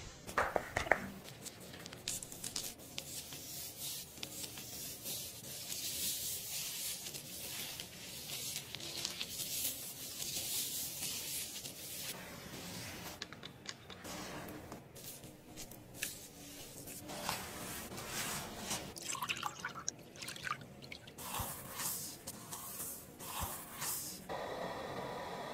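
Close, soft wet squishing and crackling of hands working skincare product and foam over skin during a facial, a steady patter of tiny clicks and crackles.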